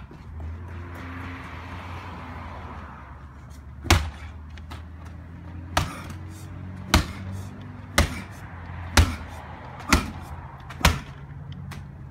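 A medicine ball slammed down onto pavement over and over: seven hard thuds, the first about four seconds in and the rest coming about once a second in the second half, over a steady low hum.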